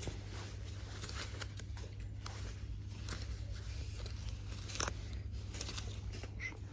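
Coats on hangers being pushed along a clothing rail by hand: irregular clicks of the hangers and rustling of the coat fabric, over a steady low hum.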